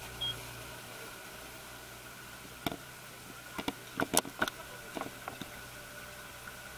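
Suzuki 300 hp four-stroke V6 outboard motor running steadily, a high whine over a low hum, with a few sharp clicks or knocks about three to five seconds in.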